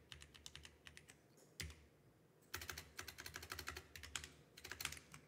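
Computer keyboard typing: quick runs of keystrokes with short pauses between them, a lull around two seconds in.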